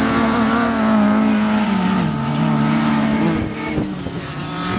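Autocross race car engines running hard on a dirt track. The engine pitch falls about two seconds in as a car lifts off or shifts, then climbs again near the end.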